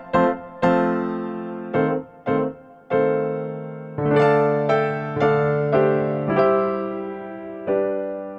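Background keyboard music: a slow, gentle melody of single struck piano-like notes and chords, each ringing and fading, ending on a held chord near the end.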